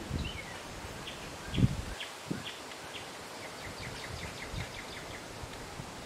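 Songbirds calling: a few short high notes, then a fast trill of rapid notes a few seconds in. Behind them is a steady outdoor hiss of wind in the trees, broken by a few low thumps, the loudest about one and a half seconds in.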